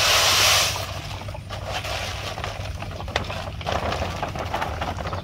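Granular hydroponic A-stock fertilizer poured from a sack into a plastic drum of water. A loud rush of granules comes in the first second, then a lighter steady trickle with scattered ticks.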